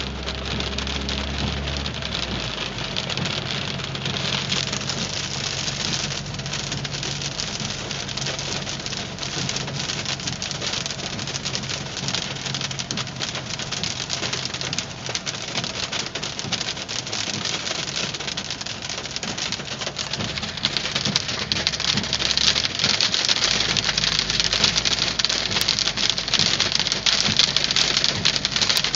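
Hailstones pelting a car in a hail storm: a dense, rapid clatter of countless small impacts that grows heavier about two-thirds of the way through.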